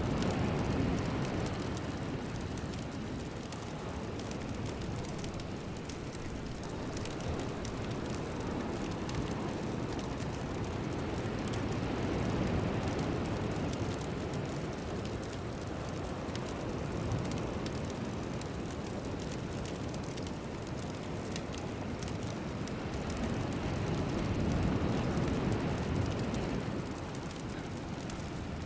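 A steady, rain-like rushing noise, deepest in its low end, that swells and eases slowly about every ten to twelve seconds.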